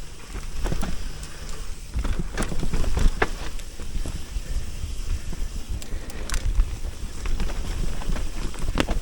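Mountain bike descending a dirt trail: a steady low rumble of tyres and wind on the mic, with frequent sharp clicks and knocks as the bike rattles over bumps.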